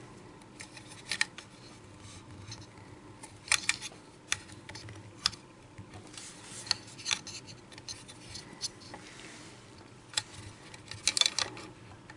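Long steel Allen key working the taper-block screw inside a Magpul AK stock: irregular sharp metallic clicks and light scrapes as the key is turned and re-seated in the screw head, with the densest cluster of clicks near the end.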